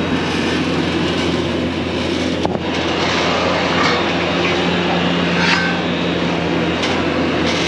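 Skid steer's diesel engine running steadily, with a few short knocks over it as a gate is lifted.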